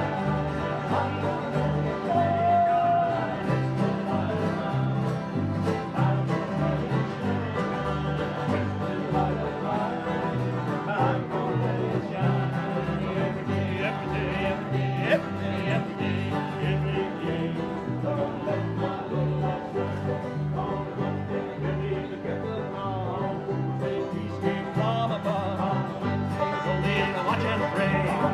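Small acoustic string band playing a country-bluegrass song: strummed acoustic guitars, a twelve-string guitar and a banjo over a bass guitar line, with the men singing together at a steady beat.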